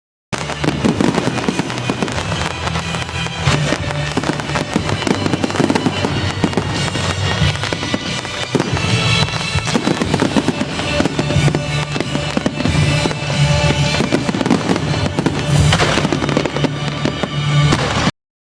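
Fireworks going off in a dense run of bangs and crackles over loud show music. The sound cuts off abruptly near the end.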